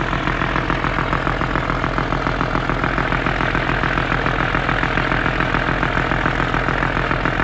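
A boat's engine running steadily with a regular, rhythmic throb.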